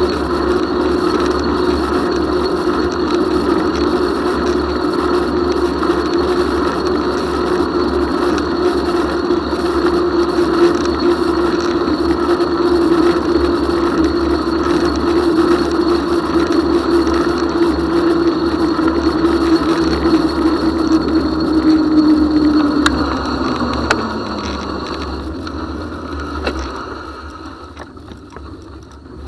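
Bicycle tyres humming on an asphalt bike path, with wind rushing over the handlebar camera. Near the end the hum slides down in pitch and fades as the bike slows, and the wind noise drops away.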